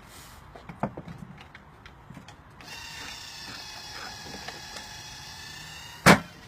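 A few light knocks, then a steady mechanical whir with a high whine for about three seconds, ending in one loud thump.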